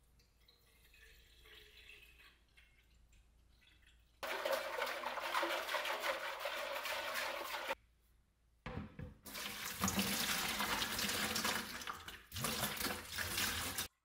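Water sloshing inside a rusty metal fuel tank and being poured out into a bucket, rinsing loose rust chunks from the tank. The sloshing starts about four seconds in, pauses for about a second near the middle, then resumes with a few knocks.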